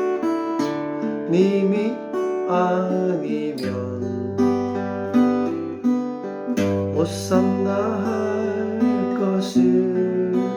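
Solo acoustic guitar playing the intro of a slow soul-style arrangement: picked chords and melody over low bass notes, with notes that slide upward and a few sharp percussive strokes.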